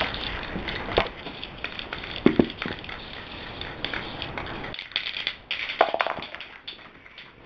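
Hands handling small drilled-out metal helmet rivets and screws on cardboard: irregular clicks, rustles and scrapes close to the microphone, with sharper knocks about a second in and a cluster of clicks a little past the middle.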